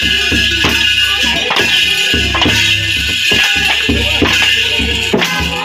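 Music with a steady beat, played loud.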